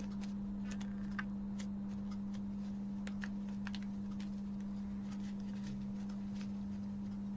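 Faint, scattered light clicks and taps of small plastic parts being handled, over a steady low electrical hum.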